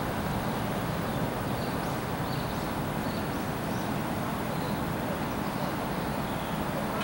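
Steady running noise of a standing JNR Class EF64 DC electric locomotive, heard close to its side vents, with faint short bird chirps over it.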